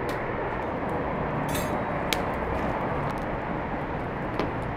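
Wood fire burning in an open stone hearth: a steady rushing noise with a few sharp crackles.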